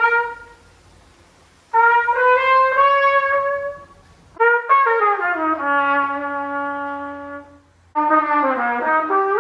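A brass instrument playing three short phrases of held notes; the second phrase slides down in pitch to a long low note, and the third falls away in steps.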